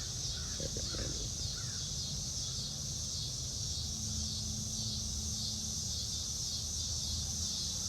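Steady high-pitched insect chorus with a regular pulsing, over a low background rumble.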